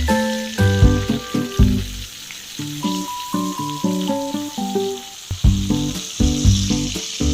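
Food frying in hot oil in a pan, a steady sizzle, under background music with a melody and bass line.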